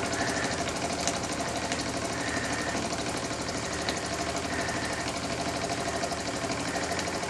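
Cyldon 13-2 semi-rotative valve toy steam engine running on live steam, fast and steady with an even, rapid beat. It runs smoothly now that its early priming has settled.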